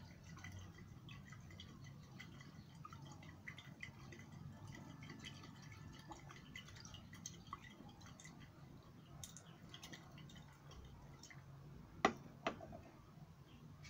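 Faint liquid swirling and small glassy ticks as a glass conical flask is swirled under a burette during an acid-base titration. Near the end come two sharp clicks about half a second apart, glassware knocking together.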